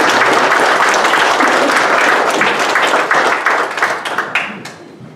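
Congregation applauding steadily, the clapping dying away about four and a half seconds in.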